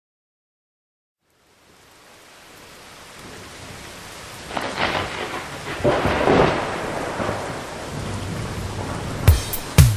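Rain and thunder fading in as the intro of a disco track, with two loud thunder rolls in the middle. Near the end a kick drum starts a steady beat, about two a second.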